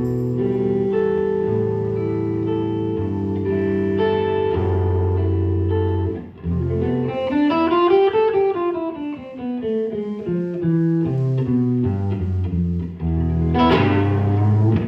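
Guitar playing a slow blues passage: held notes and chords, with a quick run of notes climbing and falling back about halfway through.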